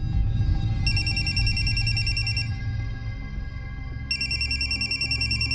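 Mobile phone ringing with a rapid, trilling electronic ring. It sounds twice, each ring nearly two seconds long with a pause between, over low background music.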